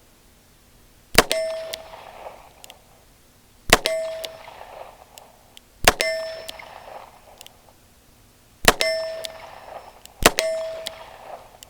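Five single shots from a .22 LR revolver loaded with standard-velocity ammunition, fired at an uneven pace one to three seconds apart. Each crack is followed by a metallic ring that fades over about a second. These are test shots for zeroing a red dot sight.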